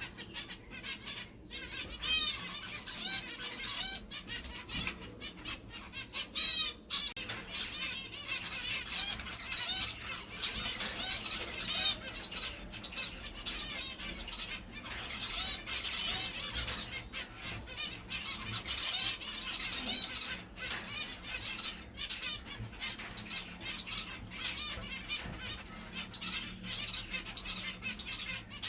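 Small caged finches chirping rapidly and continuously in short rising and falling notes, mixed with frequent wing flutters and brief clicks.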